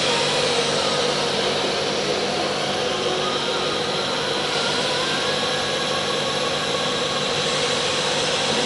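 Disc-type ATC CNC router machining center running: a steady, noisy whir with a few faint steady tones.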